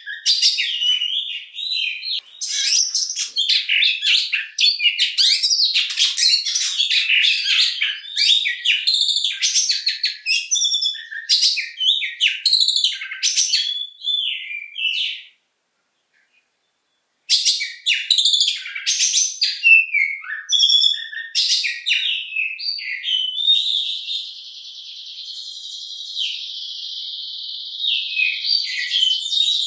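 Oriental magpie-robin singing a long, varied song of fast whistled and chattering phrases, stopping completely for about two seconds midway. In the last few seconds a steady buzzy, rapidly pulsed trill runs under its notes.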